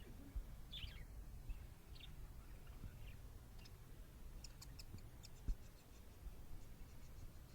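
A budgerigar chirping faintly: a few short chirps, then a quick run of sharp, high ticking notes about two-thirds of the way through. There is a soft thump partway through.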